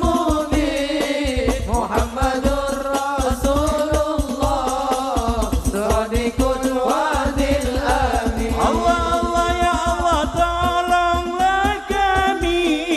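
A man's voice singing sholawat, an Arabic devotional song, into a microphone, with long held and ornamented notes over a steady, busy drum rhythm.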